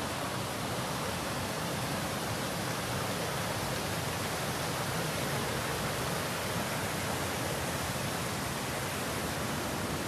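Fast river water rushing over rocks in rapids and small cascades: a steady, even rushing.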